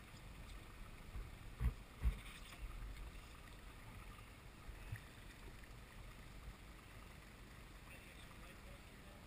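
Faint low rumble of wind and water, with two dull thumps about half a second apart, a little under two seconds in.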